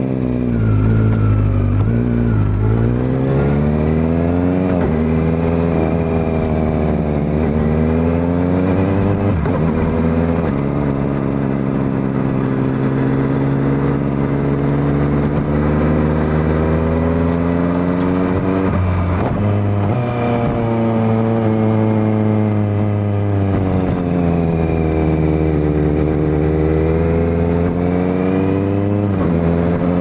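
Kawasaki Z900 inline-four through a LeoVince LV10 Carbon slip-on silencer, heard close to the exhaust while riding. The engine note climbs under throttle and falls back in long sweeps, with several sudden drops in pitch at gear changes.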